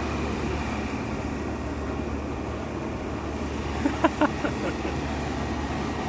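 Air-conditioning or refrigeration condensing unit running steadily just after starting, its compressor and condenser fan giving a constant hum. It was restarted with a jumper bypassing a melted fuse holder. A few brief high chirps come about four seconds in.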